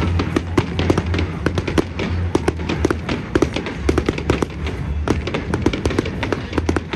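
Fireworks display: a rapid, irregular string of sharp bangs and crackles from aerial shells bursting, several a second, over show music with a pulsing bass.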